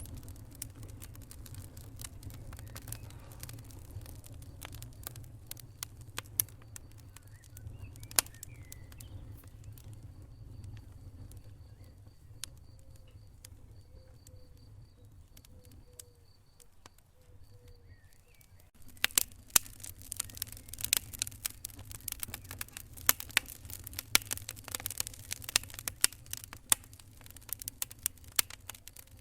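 Wood fire in a fireplace burning with a low rumble and scattered pops and crackles. It quiets for a few seconds midway, then turns to dense, louder crackling about two-thirds of the way through.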